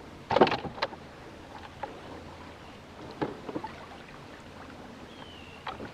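Knocks and handling noises in a small fishing boat or kayak on the water: a loud sudden clatter about half a second in, then a few scattered short knocks, with a brief high tone gliding down near the end.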